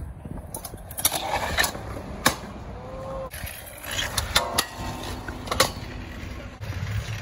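Stunt scooter wheels rolling on skatepark concrete, with several sharp clacks as the scooters land and hit the ground.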